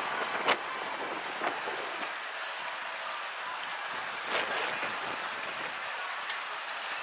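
Steady marina ambience with an even, water-like hiss, broken by a sharp knock about half a second in and a few fainter clicks later.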